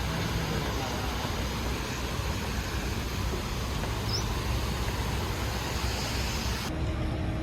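Steady city street traffic noise, a low rumble with hiss. The hiss drops away suddenly near the end.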